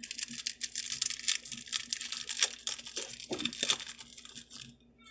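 A dense run of quick clicks and rattles from a small plastic glitter container being shaken and tapped over the slime bowl. It fades out about four and a half seconds in.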